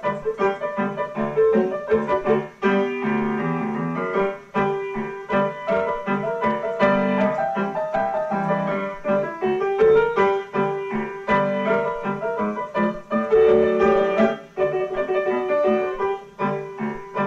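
Background piano music, a continuous flow of notes.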